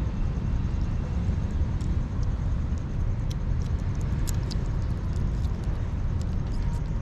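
Kittens eating minced wet food and dry kibble from a foam tray, with small scattered chewing clicks, over a steady low rumble.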